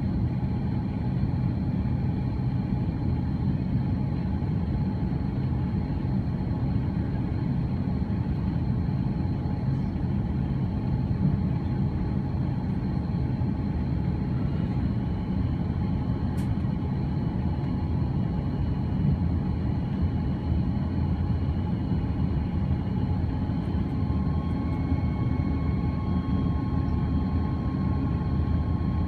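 Steady cabin noise inside an Airbus A330-300: a low, even rumble of engines and airflow with faint steady whining tones above it, and a further steady tone joining near the end.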